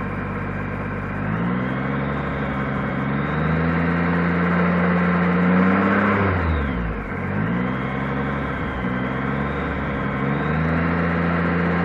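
Honda Gold Wing 1800's flat-six engine running and being revved in several rises, its pitch dropping sharply and climbing back about halfway through.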